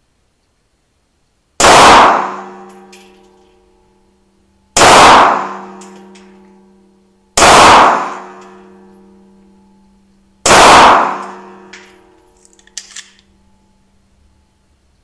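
Four 9x19 pistol shots from a Sphinx AT 2000 S, about three seconds apart, each ringing on for a couple of seconds in the indoor range. A few faint clicks of the pistol being handled follow near the end.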